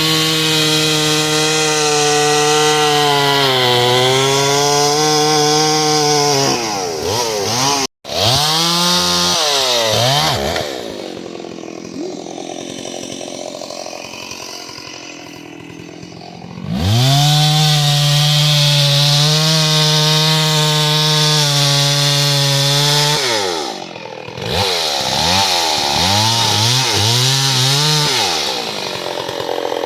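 Gas chainsaw cutting up a dead hung-up tree. It runs at full throttle, its pitch sagging as it bogs in the cut, then drops back to idle between the two long cuts, with quick throttle blips in between.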